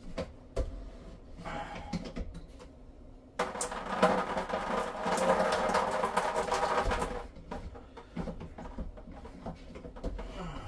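Pressure being let off a whole-house water filter housing: a sudden burst of hissing, spurting water and air starts about three and a half seconds in, lasts about four seconds and stops abruptly. Light knocks and clicks of hands working the housing come before and after it.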